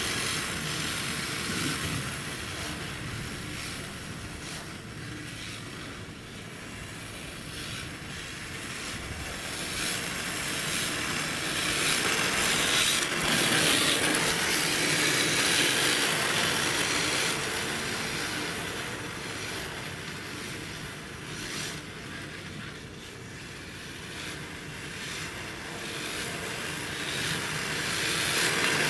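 RC drift cars on D-Like RE-R Hybrid chassis sliding on asphalt: a steady rushing hiss of hard plastic drift tyres scraping the surface, mixed with the whir of the electric drivetrain. It swells as the cars pass close, loudest about halfway through and again at the end, and fades as they move away.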